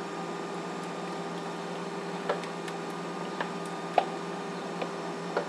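A steady electrical hum with a handful of light, sharp clicks and taps as a spatula spreads wet chopped fruit in a metal baking tray, the clearest tap about four seconds in.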